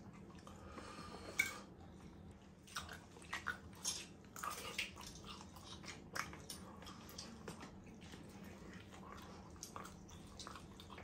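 A person chewing and biting steak and mashed potato, with wet mouth smacks and squishes and a few sharp clicks scattered irregularly, the loudest about a second and a half in.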